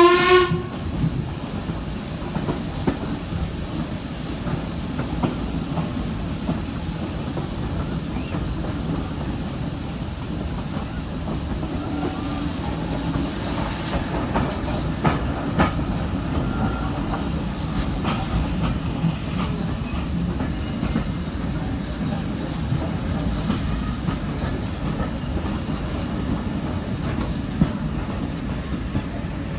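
Steam-hauled passenger train running, heard at an open carriage window: a steady rumble with scattered wheel clicks over the rail joints. The train is headed by a Stanier Black 5 4-6-0. A short whistle blast sounds right at the start.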